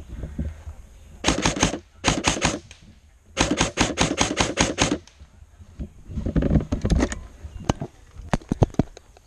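Airsoft rifle firing rapid bursts, about seven shots a second, then a few single shots near the end.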